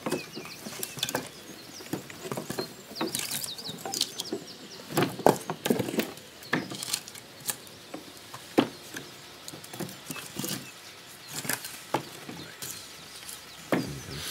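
Firewood logs being unloaded by hand: irregular wooden knocks and clatters as logs are lifted off a wooden cart and set down on a wooden handbarrow. A few short high chirps come about three seconds in.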